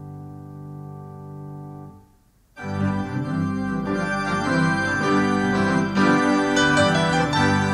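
Organ music: a quiet held chord fades out about two seconds in, and after a brief pause louder, fuller keyboard music with organ begins.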